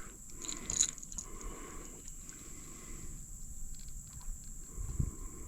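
Quiet handling noises of a freshly caught bass being dealt with in the boat, small clicks and rustles with a dull thump about five seconds in, over a steady high-pitched hum.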